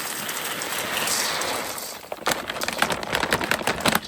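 Dry dog kibble poured into a container: a steady rushing patter for about two seconds, then a dense rattle of scattered pieces dropping.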